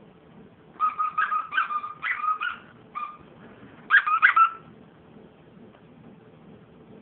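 Squeaky plush dog toy squeaking in quick runs as a dog bites and shakes it: a rapid string of squeaks about a second in, a single squeak near three seconds, and a louder run around four seconds in.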